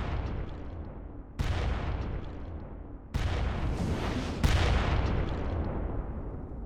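Explosion sound effects from an animated robot battle: one heavy boom right at the start, then three more at intervals of about a second and a half, each dying away in a long rumble.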